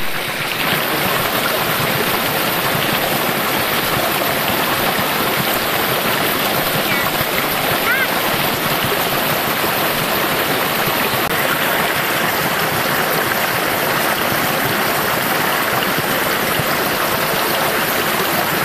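Shallow rocky forest creek flowing, a steady rush of water.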